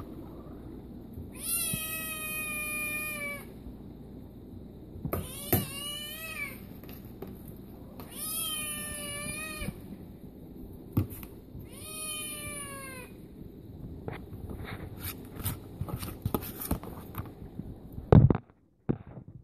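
A cat meowing four times, long drawn-out meows a few seconds apart, begging for its food. Light clicks and taps follow, then a thump near the end.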